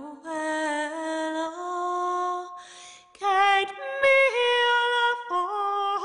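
A woman's voice singing a slow, unaccompanied melody in long held notes that step up and down, with a short pause about halfway through.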